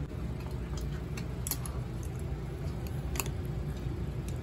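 Steady low room hum with a few scattered light clicks, the two sharpest about a second and a half and three seconds in.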